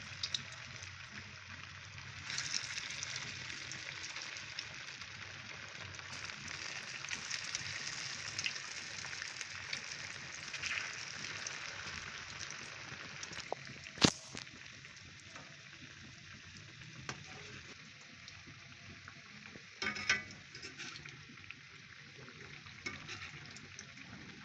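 Potato tikkis sizzling steadily as they fry in hot ghee. A single sharp click comes a little past the middle, and a few knocks come near the end.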